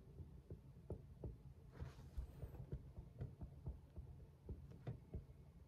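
Near silence: a low steady room hum with faint, irregular light ticks and taps, and a brief soft swish about two seconds in.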